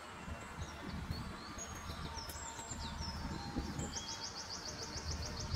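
Small songbirds chirping and calling, ending in a rapid trill of about a dozen even notes, over a steady low rumble of background noise.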